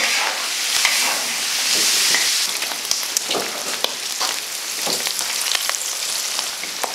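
Chunks of fatty pork sizzling in hot oil in a large wok, with a metal spatula clinking and scraping now and then as the meat is stirred and scooped.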